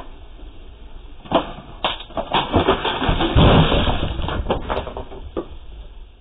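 A fire pit flaring up with a loud rush of noise about halfway through, while a white plastic patio chair tips over backwards with a man in it, knocking and clattering on stone paving.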